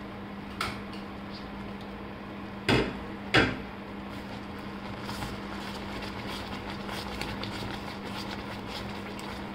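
Two sharp knocks a few seconds in. Then a plastic spatula stirs thick, cooked strawberry jam in a nonstick pan, with faint wet scraping and ticking. A steady low hum runs underneath.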